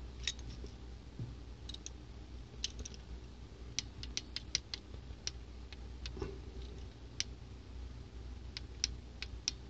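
Light, scattered metallic clicks from a Harbor Freight 1/4-inch drive click-type torque wrench being worked on a nut, its ratchet head ticking in small quick groups. There is no distinct torque-release click: at its 60 inch-pound setting the wrench is still not clicking.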